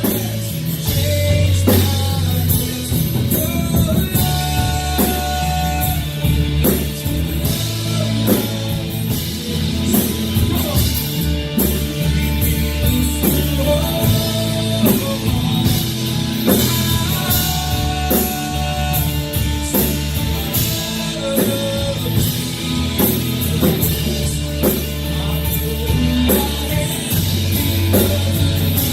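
Live worship band playing a rock-style song, with drum kit, electric guitar and bass.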